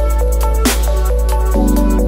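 Electronic background music with a deep sustained bass, quick hi-hat ticks and a short repeating melody; a heavy hit lands about two-thirds of a second in, and the bass shifts note near the end.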